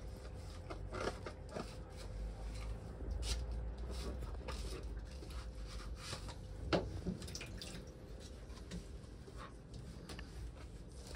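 Dishes being washed by hand at a stainless steel sink: scattered light knocks and clinks of crockery, rubbing and dripping water, with one sharper knock about two-thirds of the way in. A faint steady hum runs underneath.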